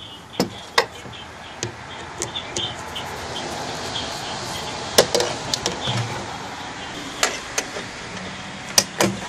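Scattered clicks and knocks of plastic and metal parts being handled in an engine bay, the intake air duct being pulled loose and a hose clamp worked with pliers, with a rustling scrape in the middle.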